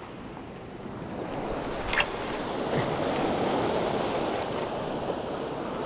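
Small waves breaking and washing up over a shingle beach, with one sharp click about two seconds in.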